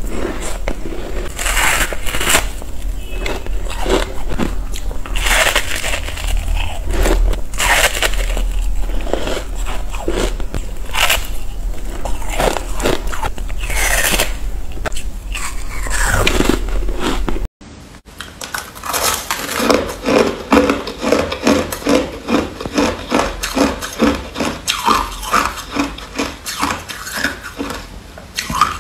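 Close-up biting and crunching of packed freezer frost, crisp irregular crunches as chunks are bitten off the block. About two-thirds of the way in the sound cuts off abruptly, then continues as quick, evenly spaced chewing crunches of crushed white ice.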